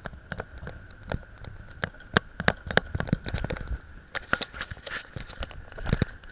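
Bicycle rattling and knocking over uneven paving, giving irregular sharp clatter that is densest in the middle and again near the end, over a steady high tone.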